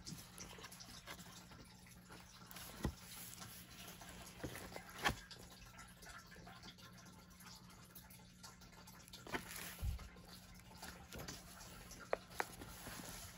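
Quiet handling of a paper colouring book: pages being turned and smoothed by hand, with soft paper rustles and a few light taps and clicks.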